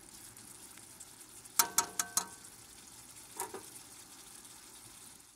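Beef heart simmering in chili sauce in a pan with a faint steady sizzle. About a second and a half in, a metal spoon clinks against the pan several times in quick succession, ringing briefly, and once more softly a little later.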